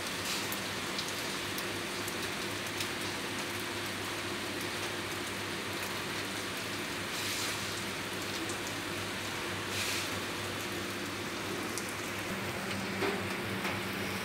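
Steady heavy rain falling on a flat, water-covered concrete rooftop, with scattered sharper drop taps through it.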